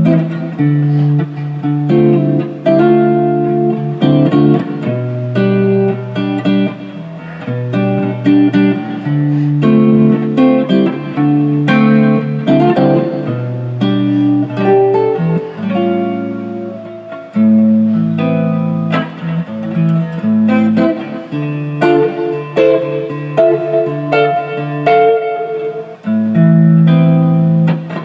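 Guitar music: plucked guitar notes and chords played steadily throughout.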